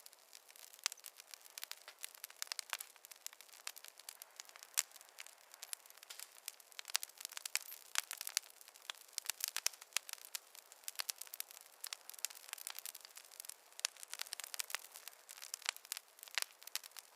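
Fire crackling in a fireplace: irregular sharp pops and snaps over a faint hiss, coming thicker in the second half, with no low rumble.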